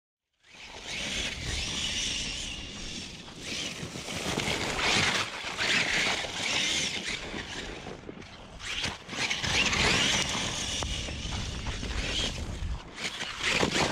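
Traxxas Sledge 1/8 RC monster truck running on 8S through a 1250 kV brushless motor, driven flat out with all four tyres spinning and tearing through dirt and grass. Its high motor-and-drivetrain whir swells and fades several times with the throttle.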